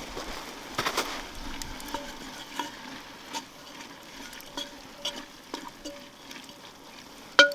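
Lamb frying and sizzling in a saj, with a metal utensil stirring and clicking against the pan now and then. Plucked-string music comes in loudly at the very end.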